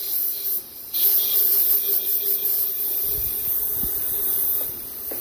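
Compressed-air blow gun hissing as it blows out the high-pressure oil plug port in a 7.3 Power Stroke diesel cylinder head, clearing and drying it for a new O-ring. A short blast, a brief pause just under a second in, then one long continuous blast.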